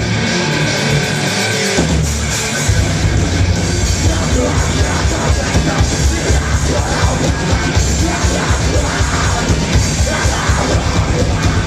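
Live heavy rock band playing loud: electric guitars, bass and drums with a yelled lead vocal. About two seconds in, the full band comes in heavily with pounding drums and bass.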